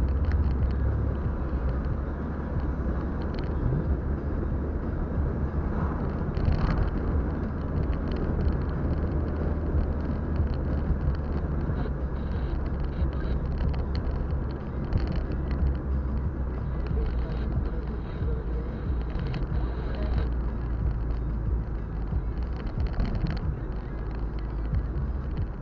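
Car driving on a city street, heard from inside the cabin: a steady low rumble of engine and tyres on asphalt, with a few light knocks and rattles.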